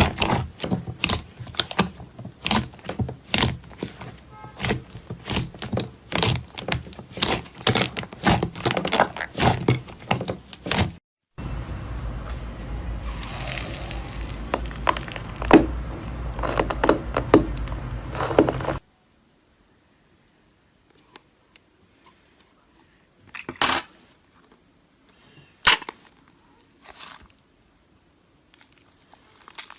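Slime being squeezed and poked, giving rapid crackling clicks and pops. It is dense at first, changes abruptly about eleven seconds in, then thins to a few isolated clicks.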